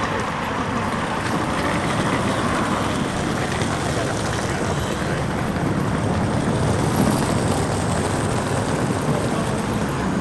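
Steady motor-vehicle noise, cars and road traffic, as a constant low hum with no distinct revs or passes.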